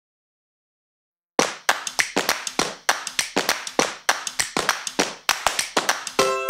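Background music opening with rhythmic hand claps and taps, starting after a second and a half of silence; a plucked string instrument comes in near the end.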